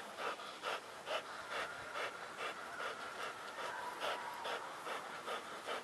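A dog panting hard and fast, about two to three breaths a second, winded from bite work on the sleeve.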